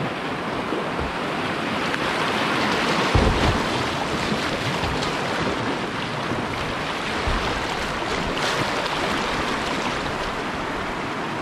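Rushing river water in a whitewater rapid, a steady wash of water noise, with a couple of low thumps about three and seven seconds in.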